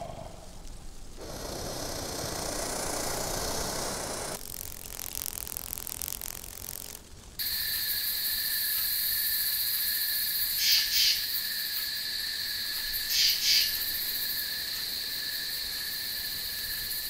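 A string of short night-woodland recordings: a badger for the first few seconds, then a flying insect, a steady high-pitched whine that starts suddenly about seven seconds in and swells louder twice.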